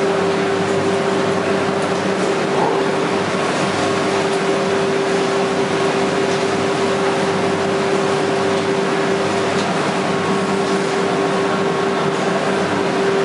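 UV curing machine on a UV coating line running: a steady mechanical hum with one constant mid-pitched tone over an even rushing noise.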